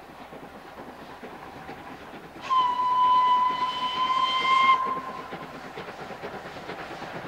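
Steam locomotive whistle blown once, a single steady note of about two seconds starting about two and a half seconds in, over the steady running of a steam tank engine hauling coaches.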